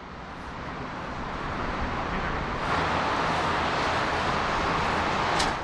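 Rushing road traffic noise from the bridge roadway below. It swells over the first two or three seconds, then holds steady.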